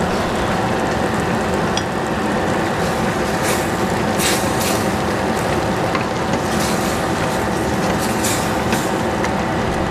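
Vegetables and pork sizzling in a stainless steel pot over a gas burner, a steady hiss over a low steady hum. From about three and a half seconds in, a wooden spatula stirs them, adding short scraping strokes.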